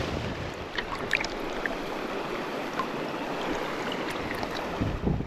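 River water rushing steadily, with wind on the microphone, a low gust buffeting near the end, and a few faint ticks about a second in.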